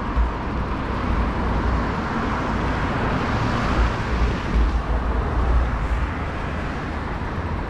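Wind rumbling unevenly on the microphone of a camera on a moving bicycle, over the steady noise of car traffic on the road beside, which swells a little around the middle.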